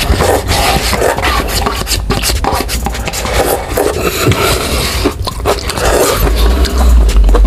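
Wooden chopsticks scraping and clicking inside a disposable ramen cup held up to the mouth, raking in the last noodles, with close-up eating sounds.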